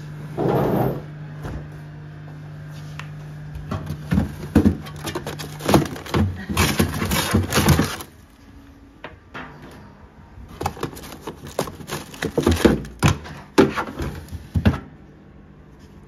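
A freezer drawer pulled open, then frozen-food packets handled and shifted about inside it: plastic packaging rustling and crackling, with knocks. The handling comes in two bursts.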